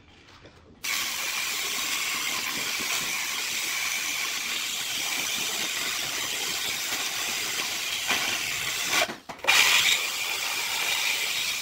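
Corded electric drill with a core bit boring a hole through a ceramic tile: a steady whirring grind that starts suddenly about a second in, breaks off for a moment near the end, then starts again louder.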